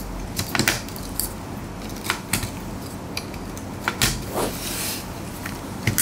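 DDR RAM sticks being pushed into a motherboard's DIMM slots, with several sharp clicks and plastic handling rattles as the modules seat and the slot latches snap shut.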